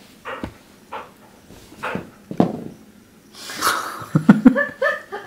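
Border collie making short sounds with a rubber tug toy: a few soft knocks and a breathy snuffle, louder knocks just after four seconds, and a short rising whimper near the end.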